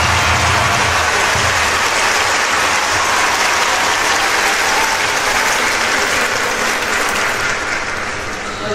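Audience clapping: dense, steady applause that eases slightly near the end.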